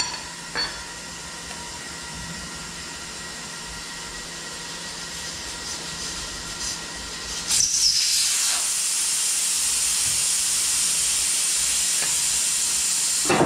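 Air hissing out of a car tyre through its open valve stem as the tyre is deflated: a sudden loud burst about halfway through, then a steady high-pitched hiss.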